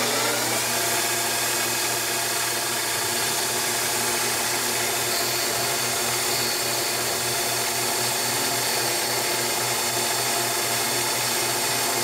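Small CNC lathe turning an aluminium bar: the spindle motor's whine rises briefly at the start, then runs steadily with a hum as the tool cuts. A faint high tone joins about five seconds in.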